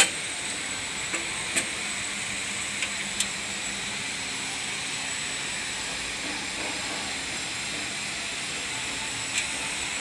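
Steady hiss with a faint high whine, over which come a few light clicks and taps, most in the first few seconds, as a sheet-metal bracket is handled and bolted onto a tractor engine.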